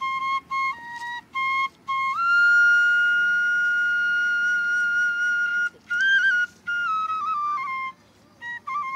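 Background music: a solo flute melody, a few short notes, then one long held note for about three and a half seconds, then shorter notes stepping down.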